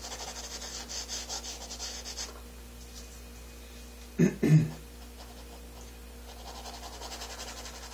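Quick repeated rubbing strokes on a painting canvas as the underpainting is worked, in two spells with a quieter gap between them. A short burst of voice about four seconds in.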